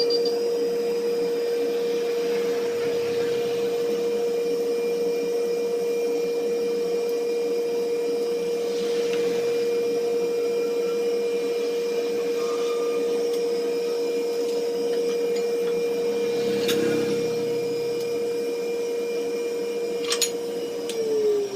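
An electric power tool's motor runs at a steady pitch, then is switched off near the end and its pitch falls as it winds down. A couple of light knocks can be heard toward the end.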